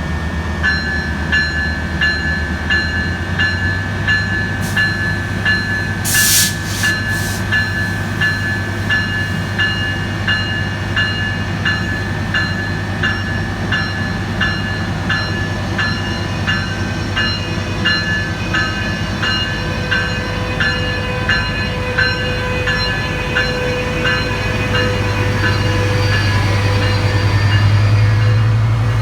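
Railroad bell ringing in a steady rhythm, about one and a half strikes a second. Under it, a train's diesel engine rumbles, building over the last few seconds as the train draws near. A short hiss sounds about six seconds in.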